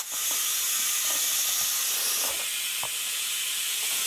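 Compressed air from a shop air hose hissing steadily into a truck tire as it is inflated to seat the bead, with a few faint clicks.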